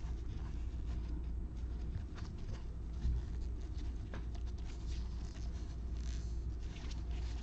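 Gloved hands handling and sorting a stack of baseball trading cards: light scratchy rubbing of card stock with small clicks, and a soft knock about three seconds in, over a steady low hum.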